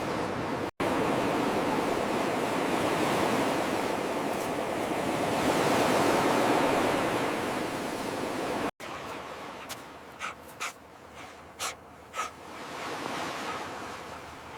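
Surf breaking on a beach with wind noise, a steady rush that cuts off abruptly twice. After the second cut the surf is quieter, with a few short, sharp high sounds.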